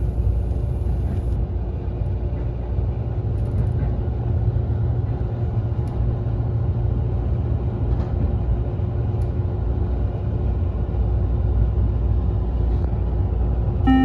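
Steady low rumble of a Meitetsu limited express train running, heard from inside the passenger car, with a faint steady hum and a couple of light clicks.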